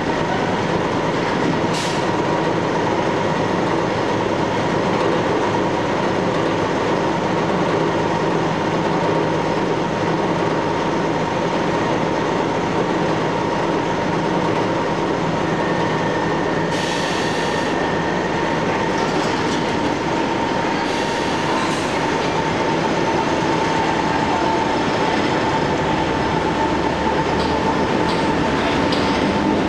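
London Underground Metropolitan line A stock train standing at a subway platform, its equipment giving a steady hum with a thin high tone. There is a sharp click about two seconds in and a couple of short hisses about halfway through, and the train starts to pull out near the end.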